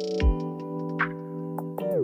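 Background music: held synthesizer chords, with one deep drum hit a quarter second in and a falling pitch sweep near the end.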